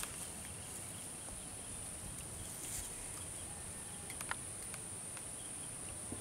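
Steady high-pitched insect chorus, with a few faint clicks about four seconds in.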